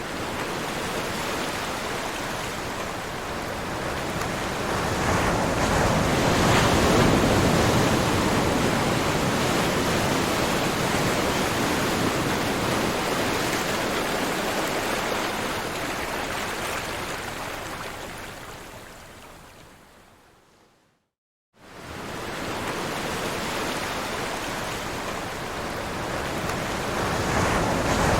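Ocean surf washing in a steady rush that swells about a third of the way in, then fades away to a brief silence about three-quarters through before the wash starts again and builds near the end.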